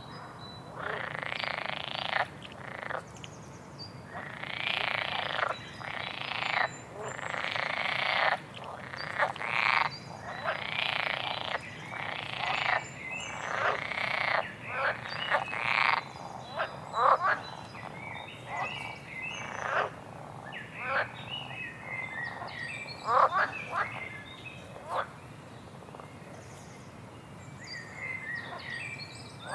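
A small songbird singing. About a dozen buzzy, rasping trills of roughly a second each come first, then about halfway through it switches to shorter chirps and quick slurred notes.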